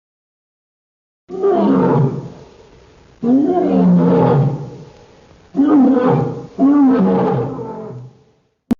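A big cat roaring: four long, loud roars one after another, each rising and then falling away. A short click follows just at the end.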